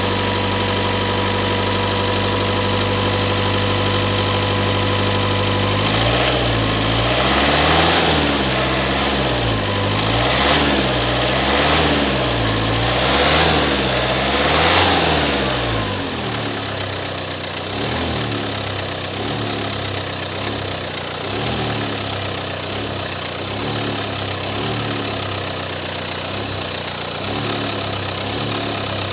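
Car engine idling steadily, then revved up and down several times, then settling back to an uneven idle. It has a knock that is expected to fade with running, because the engine had been sitting unused.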